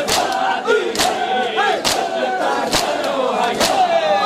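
A crowd of mourners doing matam, beating their chests in unison: a sharp collective slap just under once a second, over many voices chanting a nauha.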